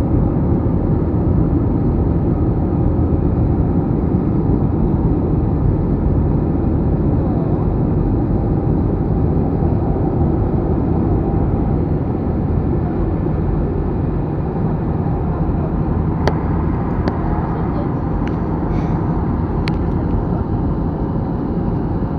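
Steady roar of an Airbus A321 in flight heard from inside the passenger cabin: jet engine and airflow noise, even and unchanging. A few faint clicks come through in the last few seconds.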